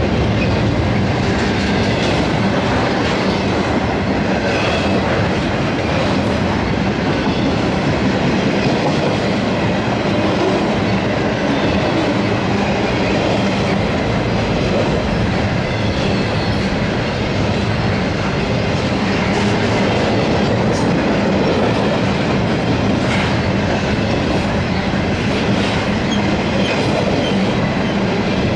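Intermodal freight train's loaded well cars rolling past at close range: a steady noise of steel wheels on the rails with a few faint clacks.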